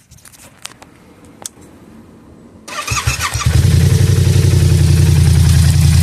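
A few light clicks, then about two and a half seconds in the Yamaha R7's parallel-twin engine is cranked on the starter and catches within a second, settling into a loud, steady idle.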